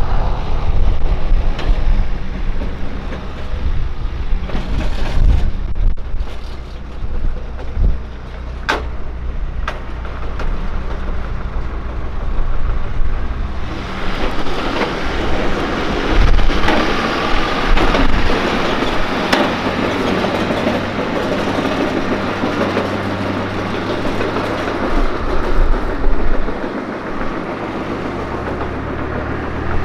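Nissan Patrol GQ 4WD driving slowly, its engine running with a clacking from the rear differential: the ring and pinion gear teeth are breaking up. A few sharp knocks stand out in the first half, and the vehicle noise grows denser about halfway through.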